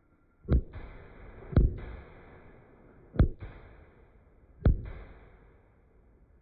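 Four firework bursts, each a sharp bang followed by a short low rumble, coming one to one and a half seconds apart.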